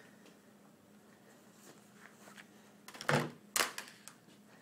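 Quiet room tone, broken about three seconds in by two short thumps about half a second apart.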